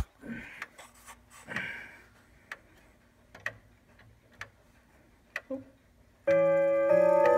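Grandfather clock ticking faintly about once a second amid handling clicks, then about six seconds in its chime hammers strike the rods again: two ringing notes, the stalled chime sequence starting up once the mechanism is nudged.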